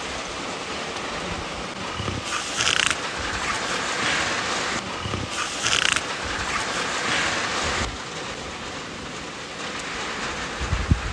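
Heavy rain pouring down, a steady hiss of the downpour that swells briefly twice, about two and five seconds in. A low rumble starts near the end.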